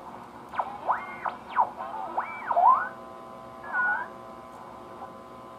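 1925 RCA Radiola IIIa regenerative radio being tuned: whistles sweep up and down in pitch about five times over a steady hum from its speaker, the heterodyne squeals of a regenerative set passing across station carriers, then the hum goes on alone.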